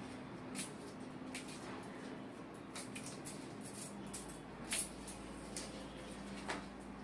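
Soft rustling and scattered light clicks of hands moving over a patient and the treatment table during a chiropractic knee adjustment, with one sharper click about five seconds in. A steady low hum runs underneath.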